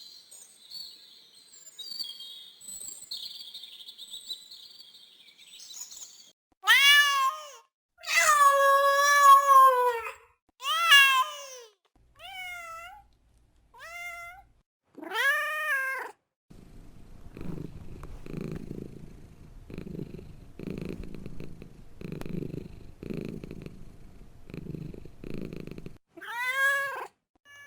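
Domestic cat meowing repeatedly in several drawn-out, bending calls, then purring in a steady rhythm of about one breath-pulse a second, with one more meow near the end. High chirping is heard for the first six seconds or so, before the cat.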